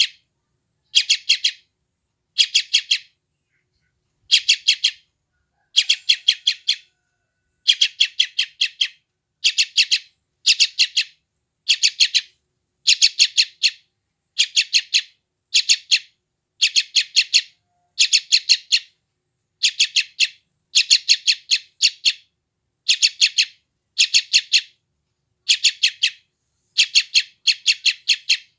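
Young yellow-vented bulbul (trucukan) giving hungry begging calls: short bursts of several quick, harsh chirps, repeated about once a second over and over.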